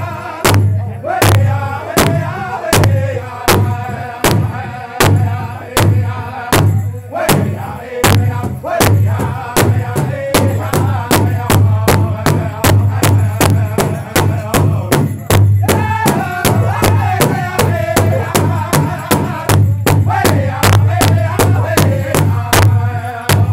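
A powwow drum group striking a large hide-topped drum in unison with padded drumsticks, a steady beat a little over two strikes a second, under loud high-pitched group singing.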